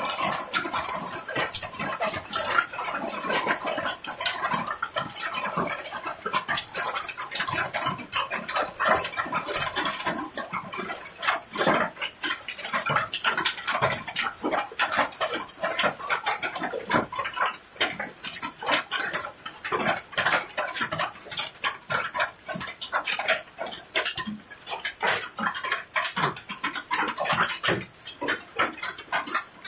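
Hailstones pelting down in a hailstorm: a dense, irregular clatter of many small hits, thinning into more separate strikes in the second half.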